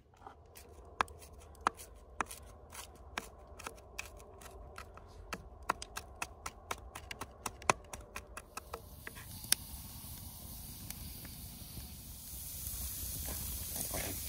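A chef's knife chopping fresh herbs on a cutting board, sharp taps at an uneven pace. About two-thirds in this gives way to the hiss of steak sizzling on a grate over a wood campfire, which grows louder near the end.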